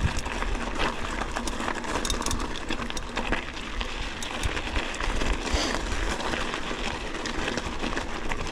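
Mountain bike rolling fast over a rough, rocky dirt trail: tyres crunching on gravel and the bike rattling, with many small clicks and knocks over a steady rushing noise.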